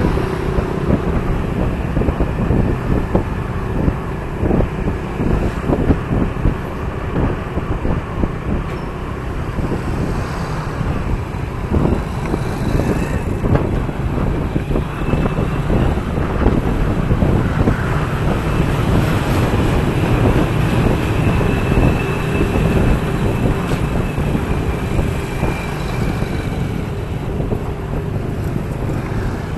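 Motorbike ride heard from on the bike: the bike's engine running steadily under road and traffic noise, a continuous low rumble with no break.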